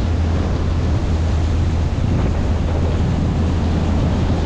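Motorboat under way: the steady drone of its twin Mercruiser 5.7 V8 engines, mixed with wind buffeting the microphone and water rushing past the hull.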